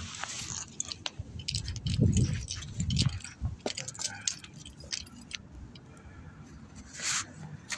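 Handling noise of a phone being moved about while filming: scattered small clicks and rattles, with two low thumps about two and three seconds in.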